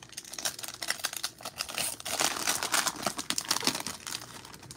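Plastic trading-card pack wrapper being torn open and crinkled by hand: a dense, crackly rustle, loudest in the middle.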